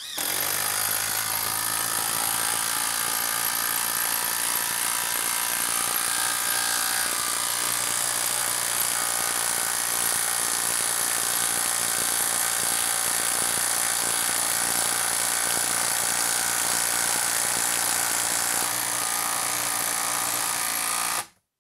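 Hilti brushless cordless impact driver impacting steadily as it drives a long 8-inch hex-head screw into the end grain of a wood log. It runs without let-up for about 21 seconds, then stops abruptly near the end as the screw seats.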